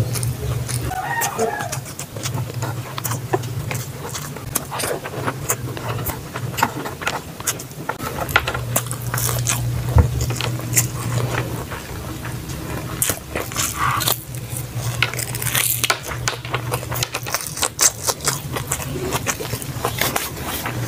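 Close-miked eating: chewing, lip smacking and many small wet clicks from a mouthful of meat and rice, over a steady low hum.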